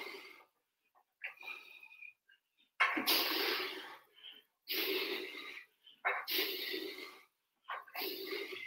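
A man breathing hard through barbell curls: a loud, forceful exhale about every second and a half, five in all, in time with the lifts.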